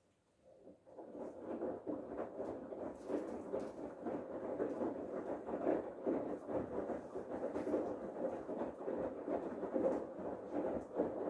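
Bosch Serie 8 washing machine's drum turning during the main wash, with laundry and water tumbling and sloshing inside. It starts about a second in, builds quickly and runs on as a steady churning of irregular soft thumps and swishes.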